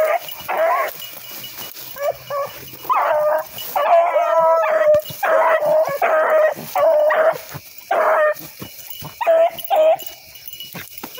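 Rabbit hound baying close by: a rapid string of short bawls at nearly the same pitch, with a short lull near the end. This is the hound giving tongue as it runs a rabbit's track.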